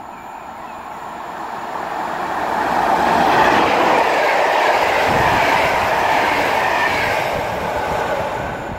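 Locomotive-hauled PKP Intercity passenger train, led by an EP07 electric locomotive, running through the station. The noise of wheels on the rails builds over the first few seconds as it approaches, then holds as a steady rush while the coaches roll past.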